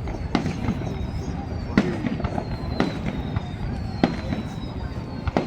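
Fireworks shells bursting in a show: about five sharp bangs, a second or so apart, over a dense low rumble. Thin high whistles slide slowly downward between the bangs.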